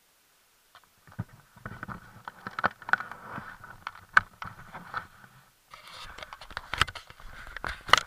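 Irregular scraping, rubbing and knocking on the action camera's housing as it is jostled on a snowmobile ride, starting about a second in, with a brief lull about two-thirds of the way through.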